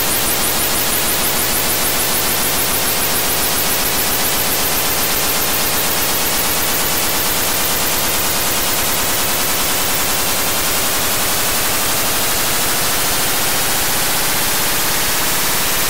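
Loud, steady static filling the whole range like a dense hiss, with faint tones slowly gliding upward beneath it: an electronic glitch or corruption sound effect.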